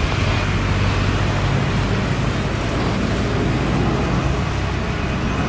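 Boeing 737 jet engines at takeoff power during the takeoff roll: a steady, loud rushing noise over a low rumble, with a thin high whine.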